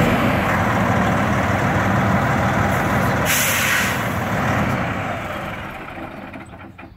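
Freightliner Columbia semi tractor's diesel engine idling, with a short, loud blast of hissing air from its air brake system about three seconds in. The engine sound then dies away near the end.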